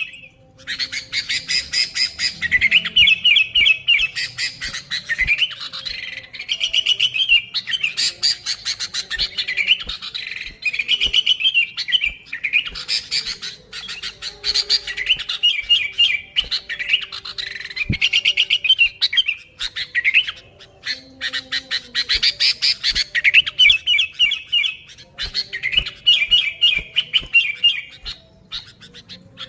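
Sooty-headed bulbul (kutilang) singing in full voice: fast, bubbly, chattering phrases a few seconds long, repeated one after another with brief pauses.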